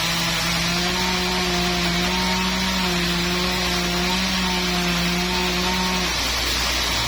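Sawmill saw running through trembesi (rain tree) wood: a steady, loud cutting noise over a machine hum whose pitch shifts, dips about six seconds in and climbs back up near the end.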